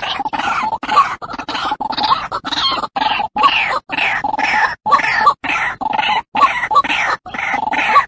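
White-breasted waterhen calling: a rapid, steady string of short repeated notes, about two to three a second, each with a falling sweep.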